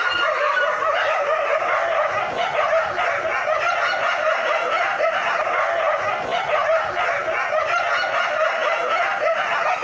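A pack of street dogs in a standoff, barking and growling at one another in a dense, continuous din with no pauses.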